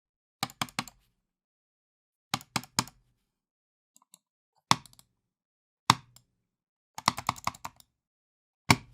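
Computer mouse buttons being clicked angrily and hard. It goes in bursts of three quick clicks, then single sharp clicks, then a rapid flurry of about eight clicks, with silence between the groups.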